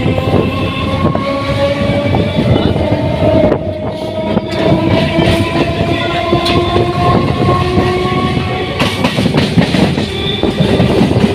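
Electric suburban local train running on the rails, its wheels clacking over the track, with a motor whine that rises slowly in pitch as the train gathers speed.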